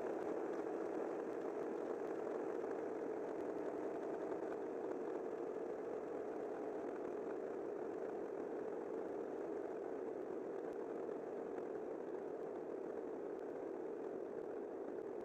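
A steady, even rumbling noise with no clear pitch, centred in the low-middle range and slowly growing quieter.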